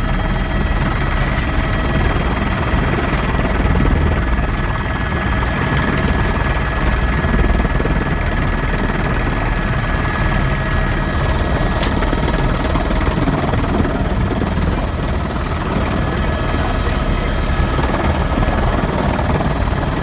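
Eurocopter AS350 B2 A-Star helicopter in flight, heard from inside the open-door cabin: a steady rotor and turbine din with a constant whine over a deep rumble.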